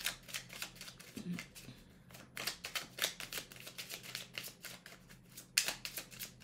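A deck of oracle cards being shuffled overhand by hand: a quick, irregular run of soft card-on-card clicks and slaps as small packets pass from hand to hand. A brief low hum of the voice comes about a second in.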